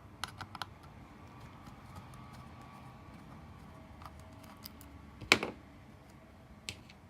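Light clicks and taps of small parts being handled on an opened laptop, a few in the first second and one sharper click a little past five seconds in.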